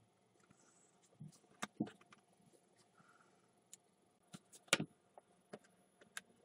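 Light, irregular clicks and taps of small wooden pieces (a thin wooden block and sticks) being handled, pressed together and set down on a cutting mat, with the sharpest tap a little past the middle.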